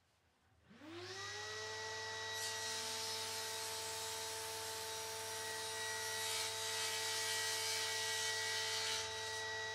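Table saw motor spinning up about half a second in, then running with a steady whine while its blade crosscuts a block of dry pine, the cutting hiss swelling twice.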